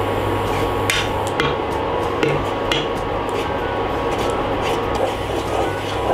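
Wooden spatula stirring a liquid mixture in a coated aluminium saucepan, scraping the bottom and knocking against the pan's side a few times in the first three seconds.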